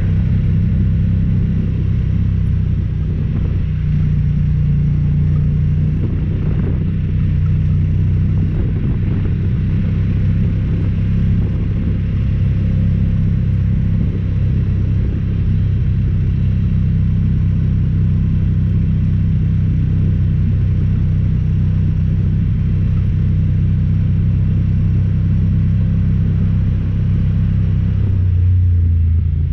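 Honda Talon 1000R side-by-side's parallel-twin engine running as it drives along a dirt trail, a steady low drone that shifts in pitch about four seconds in and again near the end.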